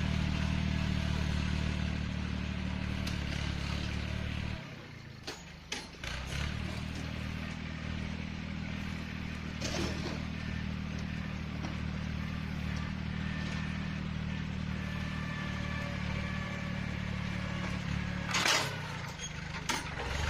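Yanmar 1145 tractor's diesel engine running steadily while pushing dirt with a blade. About four and a half seconds in, its note drops away for about a second and a half, then picks up again. Sharp knocks come a few times, the loudest near the end.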